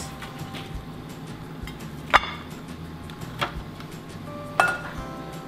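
Kitchen tongs clicking and clinking against a metal mesh crisper tray and a ceramic plate as pieces of baked chicken are served: three short clinks, the loudest about two seconds in, the last one ringing briefly.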